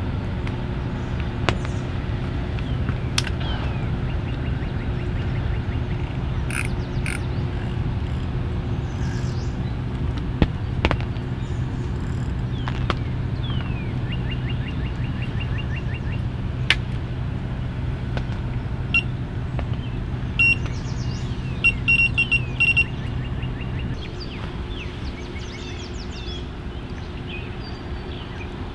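Birds chirping and trilling over a steady low hum of a distant motor, which stops about four seconds before the end; a few sharp clicks come through now and then.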